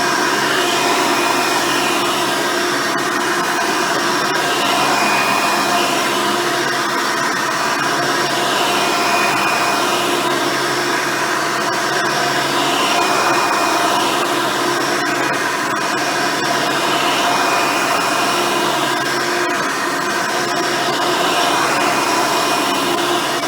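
Hoover Elite upright vacuum running with its original 7-amp motor and 7-blade fan, its single-row brush roll turning, as it is pushed across the floor. A steady motor hum whose upper note shifts slightly and regularly, about every two seconds, with each stroke.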